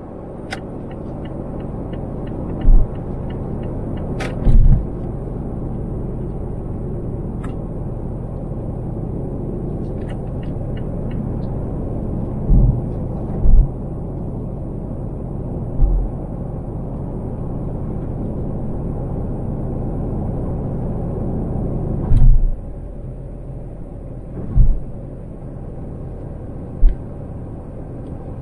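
Car interior road noise while driving on an elevated expressway: a steady low rumble of engine and tyres, broken about eight times by short, loud low thumps typical of the tyres crossing road joints. Short runs of faint ticking come twice, and the rumble eases a little after the last big thump as the car slows onto a curving ramp.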